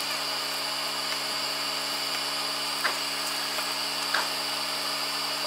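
2010 Jeep Wrangler Unlimited Rubicon's 3.8-litre V6 running steadily at low revs as it crawls over rocks, with a steady high whine over it. Two faint knocks come about three and four seconds in.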